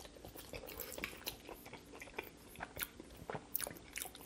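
Chewing a mouthful of buttermilk mac and cheese with chopped honey hot fried chicken, with many small clicks scattered through it.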